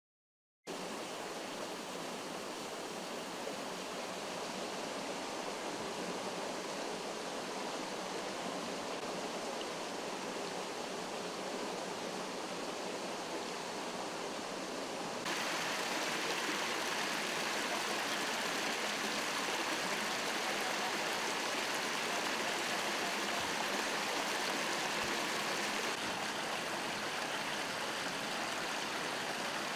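Water from a broken underground water main rushing out steadily, a constant rush that gets a little louder about halfway through.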